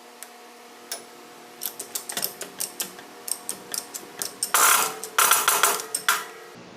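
Metal motorcycle engine parts and tools being worked by hand: a run of irregular sharp clicks, ratchet-like, with two longer rattling spells near the end that are the loudest part. A faint steady hum runs underneath.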